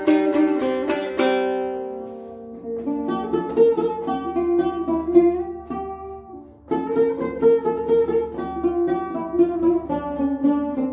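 A two-string Central Asian long-necked lute strummed in fast, even strokes meant to imitate a horse's gallop; the strumming stops about a second in and rings out. Then a guitarra morisca, a lute with a leather top like a drumhead, is plucked note by note in a melody, with a brief break about six seconds in.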